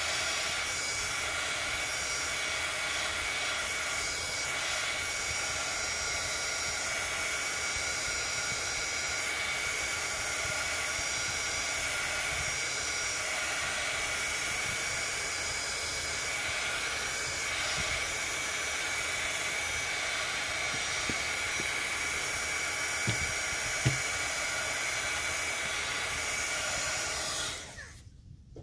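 Craft heat tool (embossing heat gun) blowing steadily with a fan whine while it dries ink on a paper journal page. Two light knocks come shortly before it switches off suddenly near the end.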